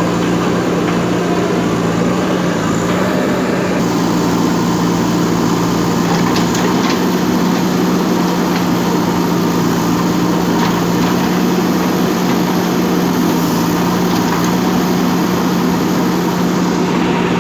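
JCB backhoe loader's diesel engine running steadily, with a few faint clicks about six to seven seconds in.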